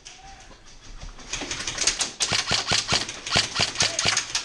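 Airsoft guns firing, a fast, irregular clatter of sharp shots that starts about a second and a half in.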